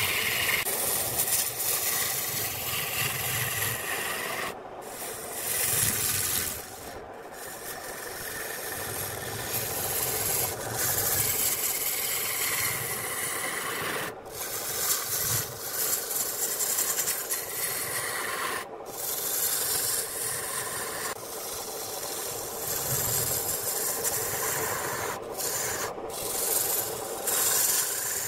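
Turning tool cutting into wood spinning on a lathe: a continuous rough hiss of shavings being peeled off, broken by brief gaps as the tool lifts off the wood about half a dozen times.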